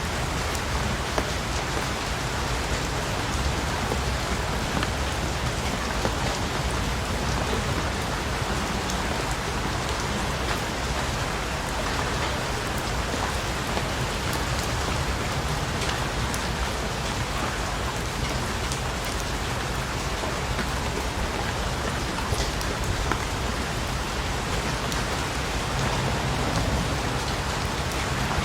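Steady rain falling on a surface, an even hiss with many scattered drop ticks.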